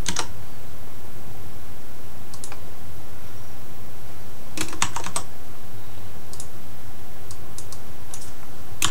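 Computer keyboard being typed on in short runs of keystrokes a second or two apart, as a search is entered, over a steady low hum.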